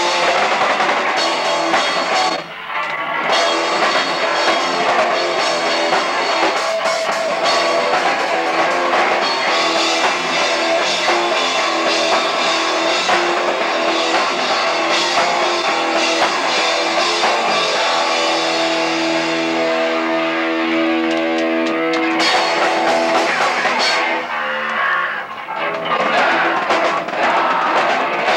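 Hardcore punk band playing live, electric guitar and drum kit loud. From about 18 to 23 seconds in, a chord is held and left ringing, then the band drops out briefly and comes back in full.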